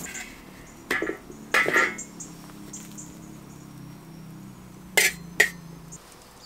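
Metal tongs clinking and scraping on a steel sac griddle while flatbreads are turned: two longer clatters about a second in and just after, then two sharp clicks near the end.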